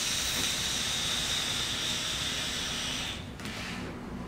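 Long drag on a Hobo rebuildable dripping atomizer (RDA) vape: a steady airy hiss with a faint high whistle as air is pulled through the airflow holes over the firing coil, stopping about three seconds in. A softer exhale follows.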